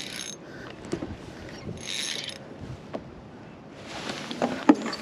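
Fishing reel's mechanism ratcheting and whirring in short spells while a large flathead is played on the line: once at the start, again about two seconds in, and again from about four seconds on.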